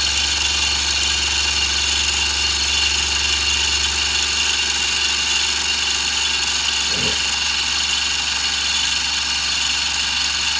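Milling machine running steadily, its single-insert fly cutter taking a light facing cut across a square metal block; a steady motor hum with a constant whine above it.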